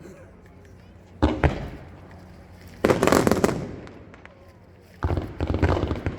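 Fireworks going off: a sharp double bang about a second in, then two long bursts of dense crackling, one near the middle and one starting about five seconds in, each slowly fading away.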